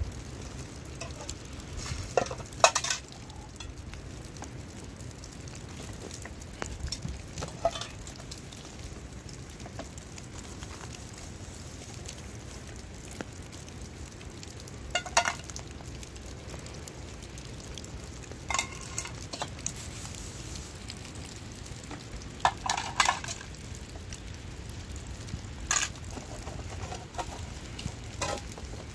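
A utensil stirring in a cooking pot, knocking and clinking against it in about eight scattered strokes over a steady hiss.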